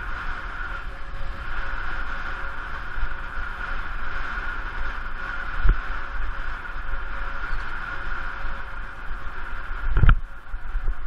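Wind rushing over the microphone of a bicycle-mounted action camera at speed, with a steady whine underneath. Two knocks, a small one about six seconds in and a louder one near the end.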